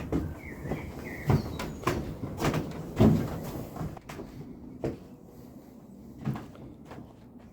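Footsteps climbing wooden stairs: heavy footfalls about every half second, with a wooden creak just after the start. The steps then come more slowly and grow fainter toward the end.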